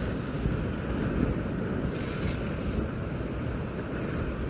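Heavy storm surf with wind buffeting the microphone, a steady rumbling wash of big waves, with a brief hiss about two seconds in.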